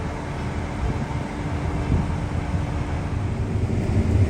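Combine harvester running, heard as a steady machine hum with a held tone. The low rumble grows louder near the end.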